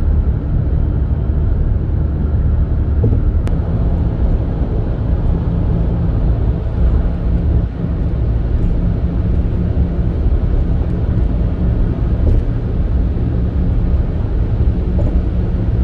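Car driving at motorway speed: a steady, heavy low rumble of tyre, engine and wind noise.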